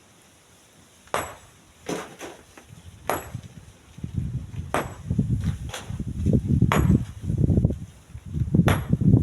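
Sharp, ringing strikes of a metal tool on stone, about eight of them spaced irregularly. From about four seconds in, gusts of strong wind rumble on the microphone and grow louder.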